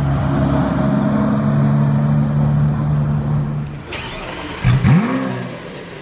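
Lamborghini Aventador S's 6.5-litre V12 running at a high, steady idle just after its start-up. About four seconds in the steady note stops, and a loud, brief swoop in pitch follows.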